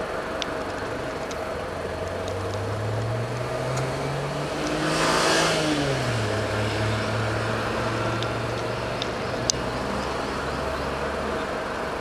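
A motor vehicle driving past, its engine and tyre noise swelling to a peak about five seconds in, its pitch dropping as it goes by, over a steady hum of background traffic. A single sharp click sounds late on.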